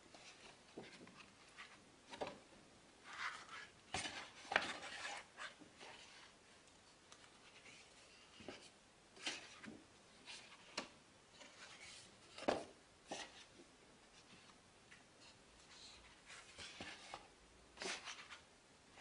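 Pages of a concertina-folded photobook being handled and turned by hand: faint, intermittent paper rustles and light taps, separated by quiet stretches.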